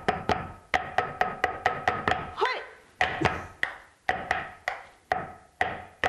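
Pair of wooden dadeumi bats beating folded cloth on a wooden block, the traditional Korean way of smoothing and softening cloth. Quick alternating strikes, about four or five a second with two brief pauses, each a hard wooden knock with a short ring.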